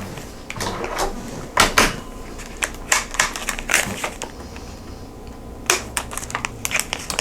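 Packaging of candy whistles being handled and opened: a run of irregular crackles and sharp clicks.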